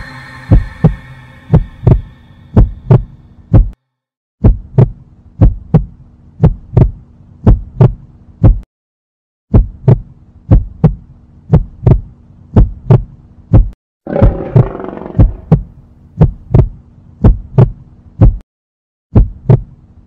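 Heartbeat sound effect: a loud, steady pattern of paired low thuds. The beat drops out briefly three times, and a short rushing swell rises over it about two-thirds of the way through.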